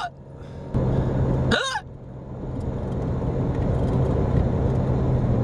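A single sharp hiccup about a second and a half in, part of a bout that has gone on for about twenty minutes. It sounds over the steady hum of a car in motion, which gets louder from about a second in.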